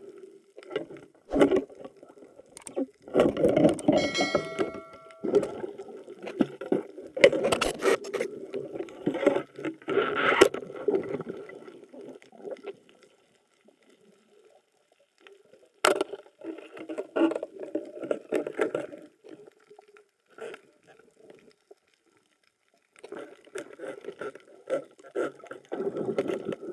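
Muffled underwater noise picked up through a camera housing: water rushing and sloshing in bursts, with sharp knocks and scrapes, dropping away briefly twice.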